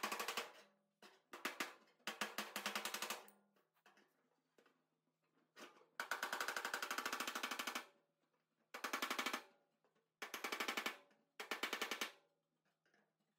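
Rapid runs of hand-hammer blows on the sheet-metal tail panel of a 1935 Ford Miller Indy car, about ten quick taps a second, in bursts of up to two seconds with short pauses between, as the annealed metal is worked toward a pointed tail.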